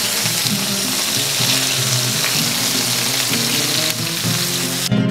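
Chopped onion and garlic sizzling in hot oil in a steel paella pan with browned chicken pieces, stirred with a spatula. The sizzle cuts off suddenly near the end.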